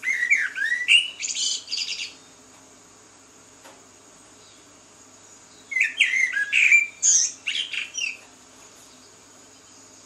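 A songbird singing two phrases of about two seconds each, some five seconds apart, each a quick run of varied high whistled notes.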